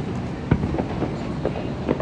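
Fireworks bangs heard from afar, a sharp one about half a second in and another near the end with a few smaller pops between, over a steady low rumble.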